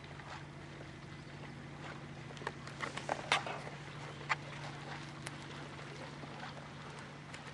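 Steady low hum of an idling boat motor, with a short run of sharp clicks and knocks, the loudest about three seconds in.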